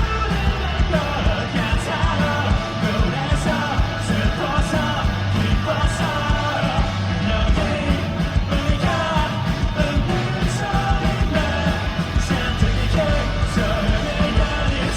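Rock song with a singer's voice carrying the melody over a steady drum beat and full band backing.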